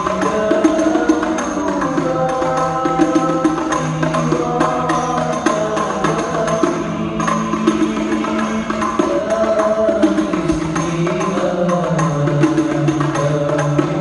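Several men singing a devotional song together into microphones, over a steady beat of hand-struck frame drums, all amplified through a sound system.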